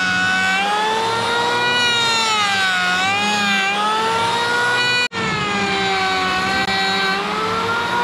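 Electric hand planer running as it is pushed across a wooden slab. Its high motor whine sinks and rises in pitch as the cutter bites into the wood and frees again. The sound breaks off for an instant about five seconds in.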